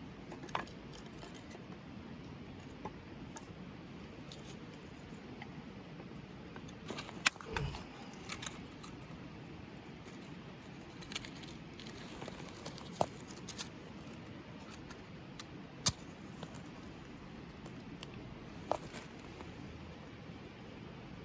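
Scattered sharp clicks and light knocks of hard objects being handled, at irregular intervals, with a dull thump about seven seconds in, over a low steady background.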